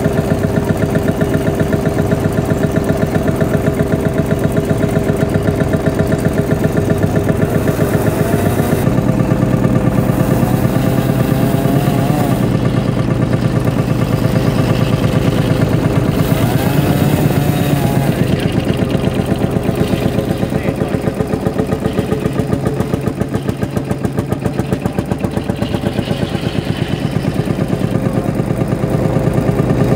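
Vintage tractor engine running steadily with an even, rapid firing beat, as it sits belted up to drive an old circular saw.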